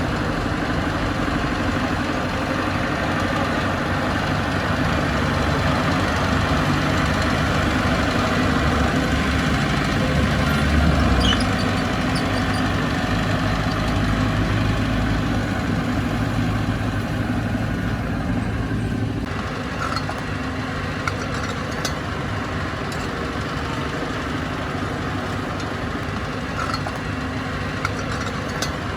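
Bulldozer's diesel engine running continuously, swelling briefly about a third of the way in, then easing to a lower, steadier note about two-thirds through. A few sharp clicks or knocks are heard in the last part.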